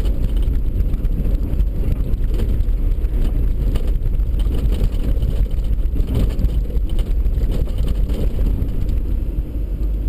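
Steady low rumble of a truck driving slowly on a snow-packed road, its engine and tyre noise heard from inside the cab.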